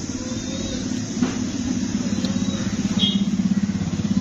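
Motor vehicle engine idling close by, a steady low sound with a fast, even pulsing.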